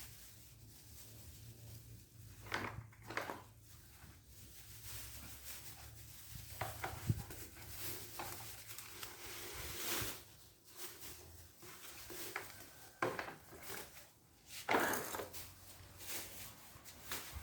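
Objects being handled, with scattered clicks, knocks and rubbing. The sharpest knocks come about 3 s in, near the middle and about 15 s in.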